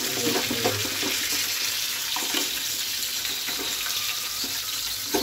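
Masala-coated crabs deep-frying in hot oil in a pan, a steady sizzle with a few faint clicks; the crabs have been turned and are crisping on the second side.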